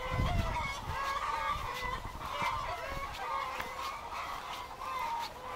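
A flock of chickens clucking and chattering inside their hen house: many short overlapping calls throughout, over a low rumble of wind on the microphone.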